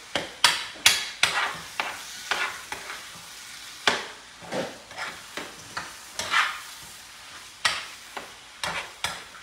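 Chorizo and ground beef sizzling in their own grease in a metal skillet, with a utensil stirring and scraping the pan in repeated uneven strokes, about two a second, over a steady frying hiss.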